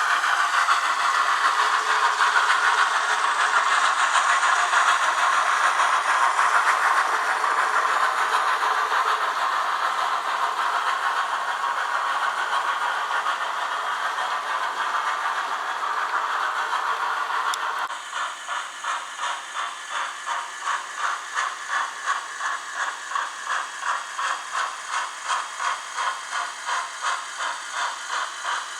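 Ixion model J class steam locomotive's DCC sound decoder playing steam sounds: a steady hiss, then about two-thirds of the way in a switch to rhythmic chuffing at about three beats a second. Mechanism noise from the model's drive may be mixed in.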